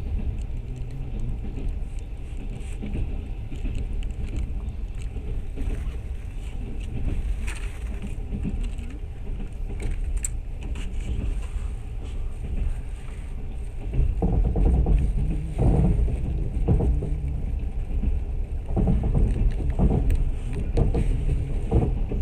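Passenger train running on the rails, heard from inside the carriage: a steady low rumble that grows louder and more uneven about two-thirds of the way through.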